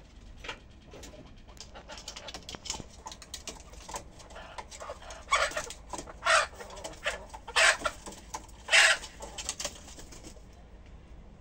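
Chickens clucking on their roost, with short calls throughout and about four louder squawks in the second half.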